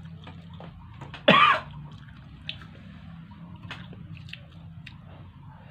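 Close-up eating sounds: chewing and small mouth clicks and smacks. About a second in, one short, loud vocal sound that falls in pitch cuts through.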